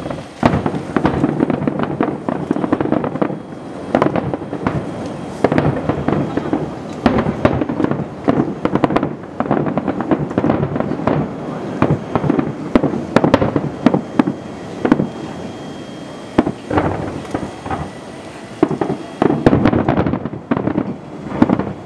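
Aerial fireworks barrage: many shells bursting in quick, irregular succession, booms overlapping with crackling stars. The bursts thin out briefly about two thirds through, then come thick again near the end.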